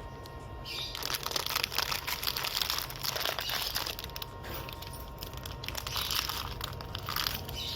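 Plastic crinkling and rustling in irregular bouts as hands handle parts.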